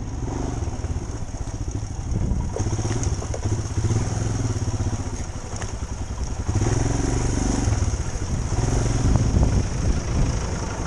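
Royal Enfield motorcycle engine pulling at low speed in a low gear over a rocky dirt track. The throttle opens a little about two seconds in and again around six and a half seconds.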